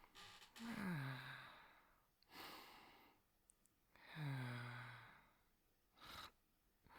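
A person's soft, slow sleep breathing, acted as sleep sounds: two voiced, sighing out-breaths whose pitch drops and settles, with breathy in-breaths between them and a short quick breath near the end.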